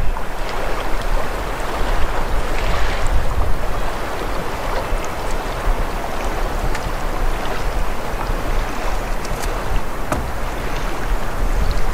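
Steady wind buffeting the microphone, a continuous low rumble with hiss above it.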